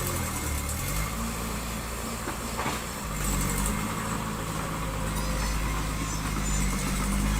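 Diesel engine of heavy earth-moving machinery running under varying load. Its pitch dips and then rises again about a second in, and it runs steadily after that, with a brief clatter midway.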